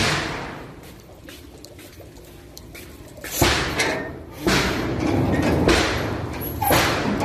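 Loud bangs of a house fence being struck hard. One blow comes at the start, then four more about a second apart from about halfway in, each with a short ringing tail.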